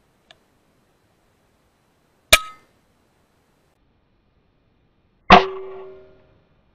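Two shots from a .22 FX Impact M3 PCP air rifle firing slugs, about three seconds apart: each a sharp crack with a brief metallic ring, the second with the longer ring. A faint click comes just before the first shot.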